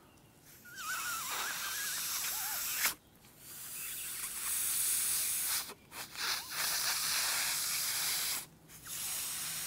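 Air blown hard by mouth through the end grain of a small, alcohol-soaked block of red oak: a hissing rush of air forced through the wood's open pores, which pushes the alcohol out of the far end. Three long blows with short pauses for breath, a fourth starting near the end; a brief squeaky whistle in the first.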